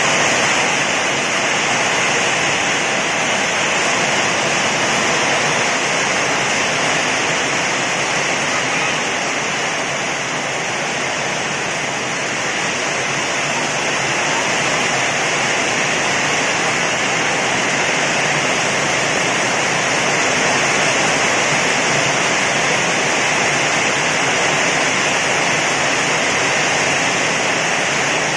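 Heavy rain falling in a steady downpour, an even hiss that holds at the same level throughout.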